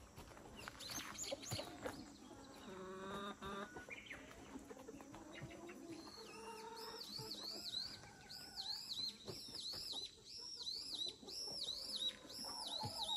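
Free-range chickens clucking. From about six seconds in, a small songbird sings a quick run of repeated high up-and-down notes, two or three a second.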